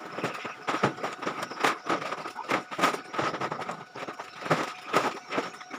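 Irregular knocks, thuds and crackling of sacks of plastic waste being handled and loaded onto a truck.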